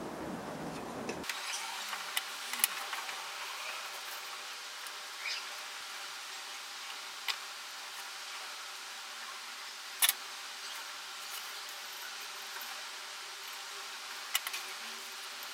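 A steady faint hiss with a low hum, broken by a few sharp clicks, the loudest about ten seconds in.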